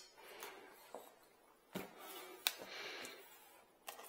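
Faint handling of a cardboard shipping box and its packing: a few light knocks, two of them sharper in the middle, and a brief rustle.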